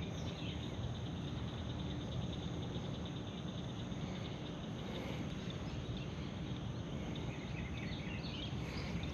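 Steady outdoor ambience with faint, scattered wildlife chirps.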